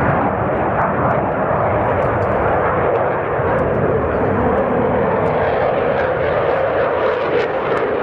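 Dassault Rafale fighter jet's twin turbofan engines, a loud, steady jet rumble as the aircraft flies overhead.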